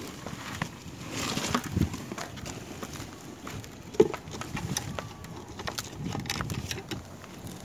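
Handling noise on an asphalt shingle roof: work boots shuffling on the shingles and the plastic solar tube flashing being moved and set down over the roof opening, irregular knocks and scrapes with one sharp knock about four seconds in.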